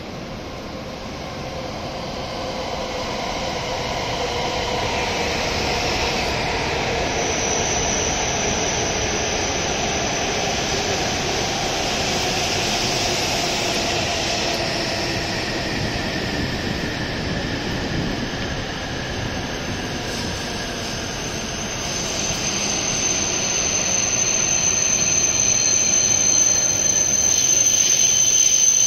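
W7 series Shinkansen train pulling in along the platform and slowing. Its running noise builds as it nears, with a whine that falls in pitch as it slows and a high, steady squeal that grows louder near the end.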